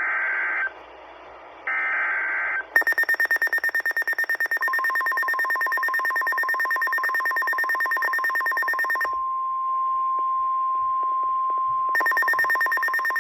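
NOAA Weather Radio alert sequence: two short, harsh screeching SAME digital header bursts, then a weather radio receiver's rapid pulsing alarm beep. About two seconds after the beep starts, the steady single-pitched 1050 Hz warning alarm tone joins it. The pulsing beep stops for about three seconds while the steady tone carries on alone, then resumes near the end.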